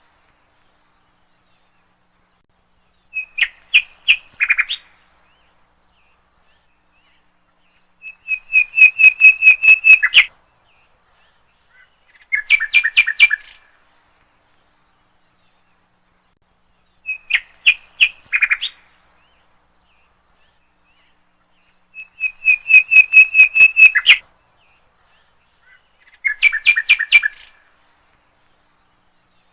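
A bird chirping in short bursts of rapid, repeated notes, one burst every four to five seconds with silence between. The same sequence of phrases comes round again about every fourteen seconds, as in a looped birdsong recording.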